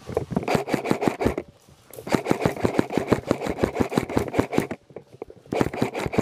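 Airsoft rifle firing on full auto in three long bursts of rapid, evenly spaced shots, with short pauses about a second and a half in and near five seconds in.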